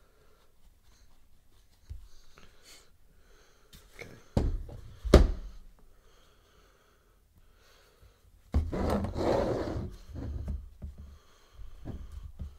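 A person blowing on wet paint on a small canvas, the breath hitting a nearby microphone as rough gusts: two short puffs about four to five seconds in, then a longer blow about eight and a half seconds in with a few weaker ones after it.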